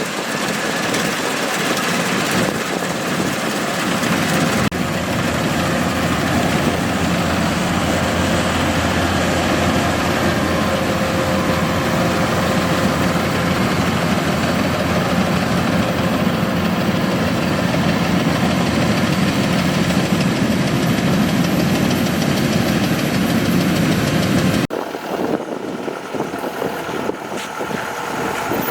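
Kubota DC-105X combine harvester's diesel engine running steadily under load. The sound cuts off abruptly near the end to a quieter, thinner engine noise.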